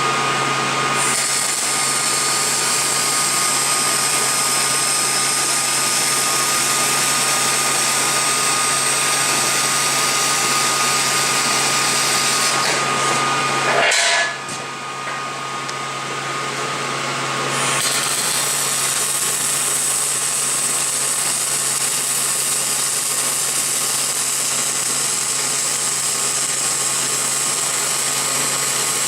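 Electric power tool running steadily with a constant whine. It briefly lets off about halfway through and comes back up to full speed a few seconds later.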